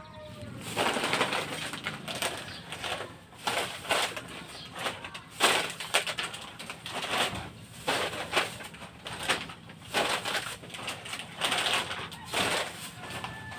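Clear plastic bag crinkling and rustling in repeated irregular bursts as packets are pulled out of it and handled.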